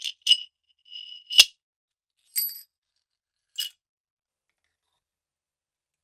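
Small metal lighter parts clinking and tapping together as they are fitted: a handful of short, ringing metallic clinks, the loudest about a second and a half in, stopping after about four seconds.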